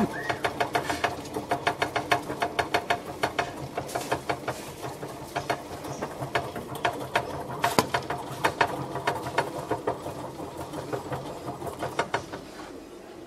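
Wire-mesh hamster wheel spun fast by a degu's front paws, rattling with an even clicking rhythm of about five clicks a second that dies away near the end.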